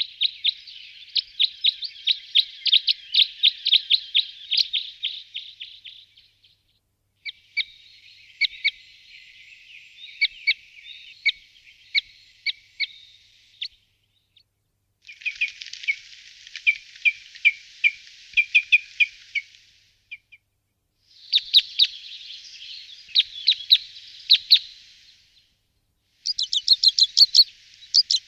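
Small birds chirping in rapid runs of short, high tweets. They come as five separate stretches of several seconds each, with a second or so of silence between them.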